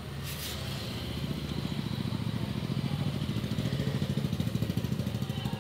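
Vehicle engine running at low speed, a steady low pulsing drone that grows a little louder after about two seconds.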